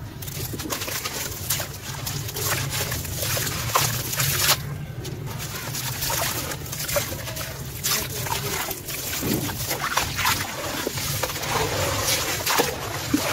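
Sand-cement chunks crumbling between fingers into a basin of water: a gritty crackling of many small cracks, with trickling and splashing as the sand and crumbs fall into the water and the hands stir it.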